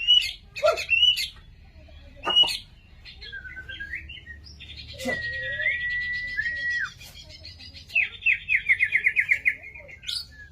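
White-rumped shama (murai batu) singing a varied song of loud whistles. It opens with short sharp notes, holds one long steady whistle midway, then gives a fast run of repeated notes near the end.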